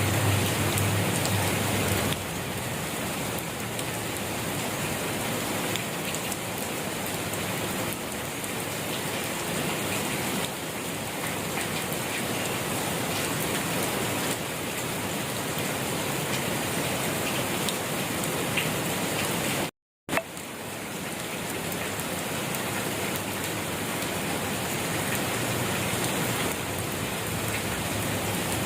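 Steady rain falling, an even hiss of drops on a surface. The sound cuts out completely for a fraction of a second about two-thirds of the way in, then resumes.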